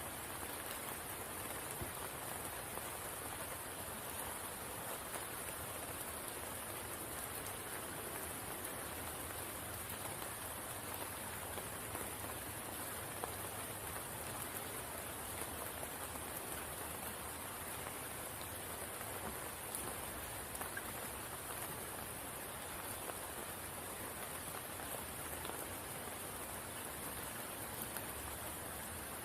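Steady rain falling on a spring pool: an even hiss speckled with many small drop ticks, with a strong high-pitched band of hiss above it.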